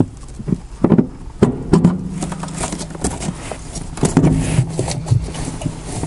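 Clicks and knocks of hand tools and metal as the two nuts holding a small electronic control box under a car's dashboard are undone and the box is lifted away. A low steady hum runs under it from about two seconds in.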